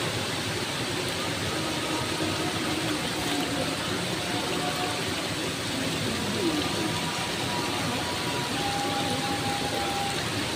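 Steady rushing of stream water, an even hiss, with a few faint short high tones over it.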